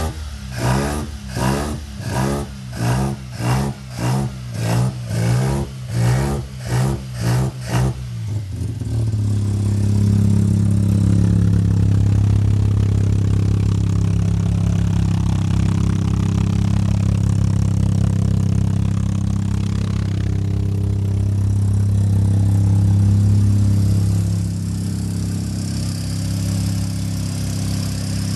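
Freshly rebuilt Mazda 12A rotary engine, big street-ported with a side-draft Mikuni carburettor and breathing through a Racing Beat header and Flowmaster muffler. It runs with a pulsing, uneven beat about twice a second for the first several seconds, then smooths into a steady, even run whose level eases slightly near the end.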